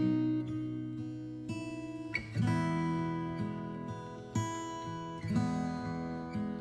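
Background music: acoustic guitar playing slow, ringing chords, with a new chord struck every second or two.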